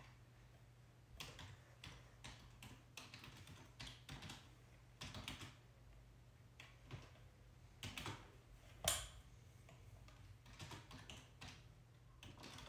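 Faint, scattered small clicks and taps of metal tweezers working at the antenna connectors and tape on an opened MacBook's logic board, with one sharper click about two-thirds of the way through, over a low steady hum.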